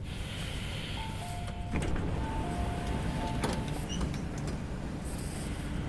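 Metro train door chime: a run of alternating high and low beeps lasting about three seconds, with a knock from the sliding passenger doors about two seconds in. After that a steady low hum from the train carries on.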